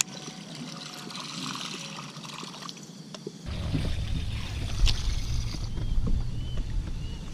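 Water lapping and trickling against a small wooden boat's hull, with scattered light clicks. From about three and a half seconds in, wind rumbles on the microphone, and three short faint chirps come near the end.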